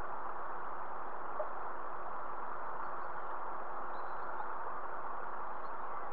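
Steady, even rushing noise at a constant level, with a few faint high bird chirps about four seconds in.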